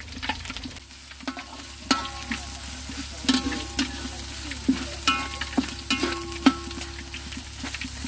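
Food sizzling in a hot metal pan as it is stir-fried. A metal spatula knocks and scrapes against the pan about twice a second, and many of the knocks leave a short ringing tone.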